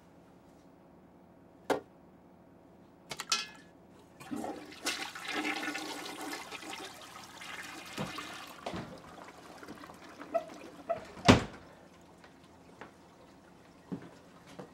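A toilet flushing: a couple of clicks from the handle, then water rushing for about four seconds and tailing off. Scattered knocks follow, with one sharp, loud knock about eleven seconds in.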